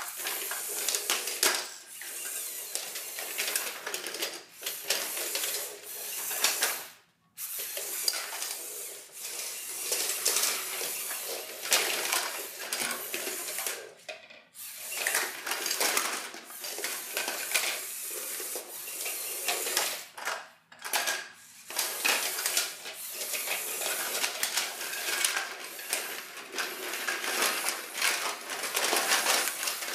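Remote-controlled LEGO Technic Volvo wheel loader (set 42030) running on its electric motors, with plastic LEGO parts clattering and scraping. The sound cuts out sharply a few times and starts again.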